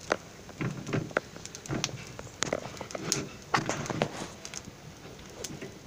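Hand patting and pressing a stack of thin maida sheets flat on a dosa tawa: a few soft dull taps mixed with sharp little clicks.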